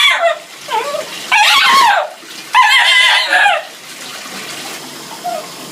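A dog crying out while being bathed: several drawn-out, wavering whines and howls in the first three seconds, over the steady sound of running bath water that carries on alone afterwards.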